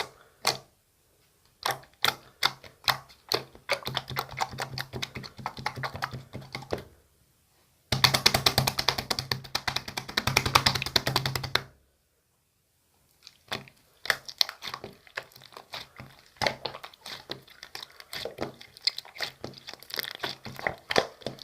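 Shaving-foam marbled slime being squished and poked by hand, giving sharp pops and clicks of trapped air. The clicks come sparsely at first, turn into a dense rapid crackle about eight seconds in for a few seconds, stop briefly, then resume irregularly.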